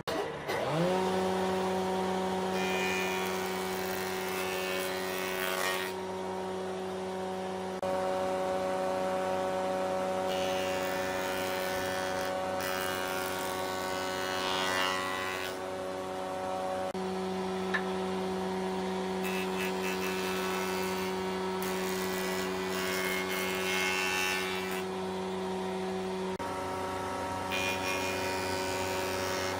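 Electric power tool spinning up quickly, then running at a steady pitch, with bursts of hiss coming and going as it works the wood.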